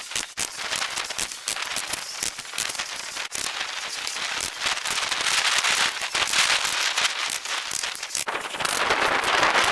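Asphalt shingles being handled and laid on a roof: dense gritty crackling and scraping that gets louder near the end.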